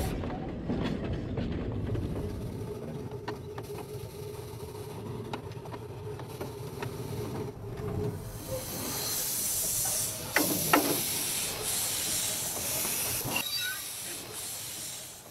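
Miniature steam locomotive running on its track: a low rumble with a steady tone and scattered clicks, then steam hissing from about eight seconds in. Two sharp, loud sounds come about ten and a half seconds in.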